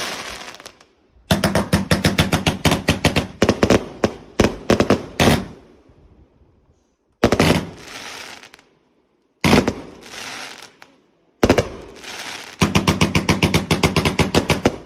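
Fireworks going off: rapid volleys of sharp bangs, several a second, broken by a few single loud bangs, each of the first two trailed by a brief crackling hiss.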